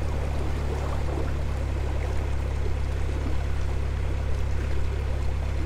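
Narrowboat engine running steadily at cruising speed, an even low drone.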